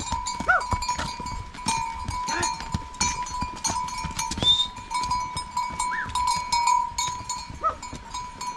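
Livestock bells ringing and clanking, with a few short rising-and-falling animal calls.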